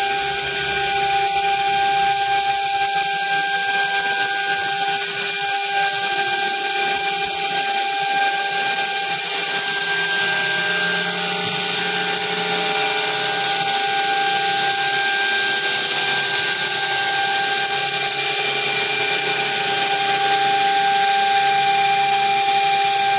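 CNC cutting machine running steadily while it cuts, giving a constant hiss with a steady high whine from the motor.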